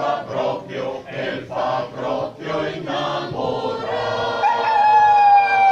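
Choir singing a repeated rhythmic syllable, about two beats a second. After a short gap it holds one long closing note that sags slightly in pitch.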